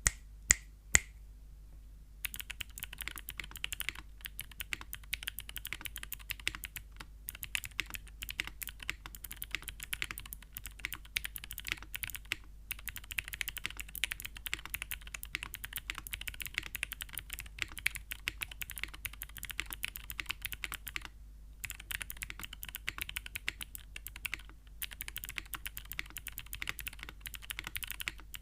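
Typing on a TKD Cycle8 mechanical keyboard with Gateron Melodic clicky switches: three loud single key presses, then from about two seconds in a fast, dense run of crisp clicks broken by a few short pauses.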